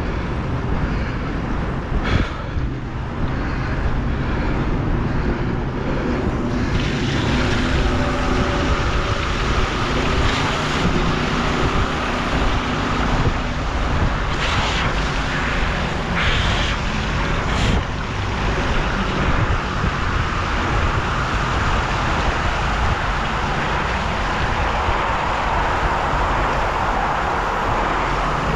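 Wind rumbling on the microphone and the tyre noise of a recumbent trike riding along, joined after several seconds by the wheels running through floodwater: a steady hiss of spray that grows louder later on, with a few sharp splashes.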